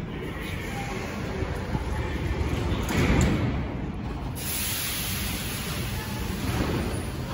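Ema-502 metro train standing at an underground platform, with a steady hiss of compressed air that starts suddenly about four seconds in.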